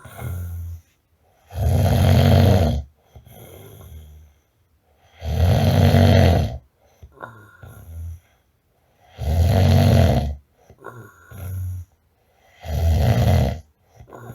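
A person snoring loudly in a slow, regular rhythm. There are four rumbling snores about four seconds apart, each lasting about a second, with softer breaths between them.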